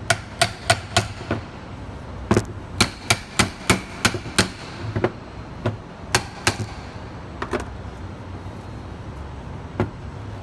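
Repeated sharp knocks on the housing of a Seltec/Valeo A/C compressor as it is struck to loosen it during teardown. Four quick knocks come first, then a faster run of about eight, then a few scattered single knocks.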